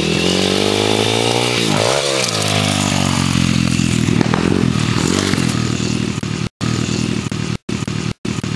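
Small four-stroke pit bike engine (PitPro XR 140) running under throttle as it rides past, its pitch rising and then falling about two seconds in as the rider revs it. Near the end the sound cuts out suddenly three times for a moment.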